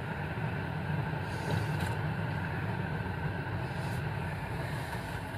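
Steady road and tyre noise with a low hum, heard from inside the cabin of a moving Jaguar I-PACE electric car.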